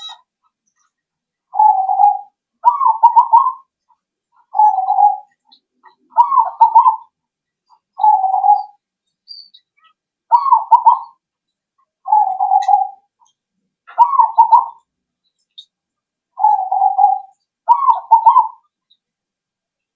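Zebra dove (perkutut) cooing in its song: about ten short phrases, a smooth steady coo alternating with a rolling, trilled coo, with pauses of about a second between them.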